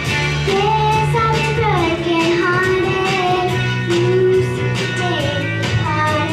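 A young girl singing a slow melody in long held notes over instrumental accompaniment.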